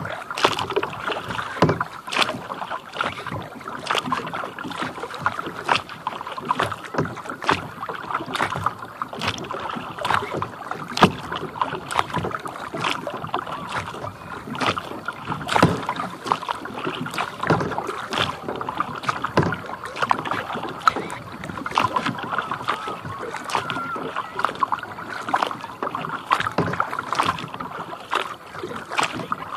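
Kayak paddling on a lake: water splashing and dripping off the paddle and lapping against the plastic hull, many small irregular splashes over a steady wash of water.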